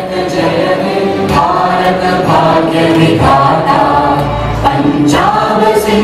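A choir of voices singing a song in long, held notes with musical accompaniment.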